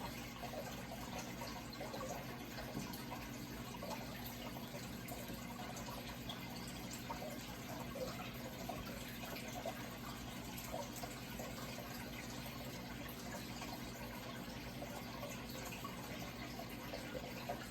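Running water trickling and bubbling steadily, with a constant low hum underneath.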